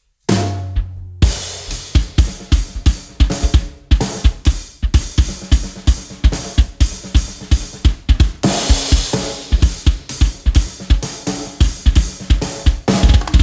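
Drum kit played with oversized wooden drumsticks: bass drum, snare and cymbal hits in a steady funk beat that starts about a second in, after a short low drum note. The pattern changes near the middle and gets busier near the end.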